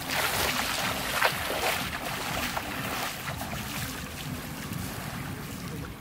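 Small, gentle waves of the Black Sea lapping and washing up a sandy shore. The wash is louder, with a hissing fizz, in the first two seconds, then settles. A low rumble of wind on the microphone runs underneath.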